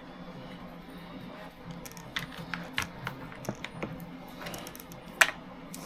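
Light, irregular clicks and taps of hard plastic as a LiPo battery pack is handled and fitted into an RC buggy's 3D-printed battery tray, with one sharper click near the end.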